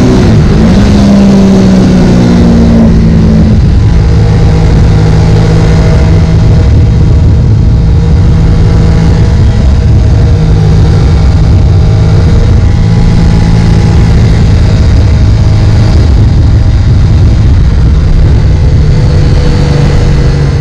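2017 Triumph Daytona 675R's inline three-cylinder engine heard onboard at speed over heavy wind rush. The engine note falls over the first few seconds, then holds a steady, lower pitch.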